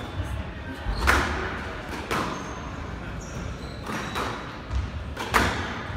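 Squash rally: sharp cracks of the ball off rackets and court walls, loudest about a second in, at two seconds and near the end, with shorter high shoe squeaks on the wooden court floor between.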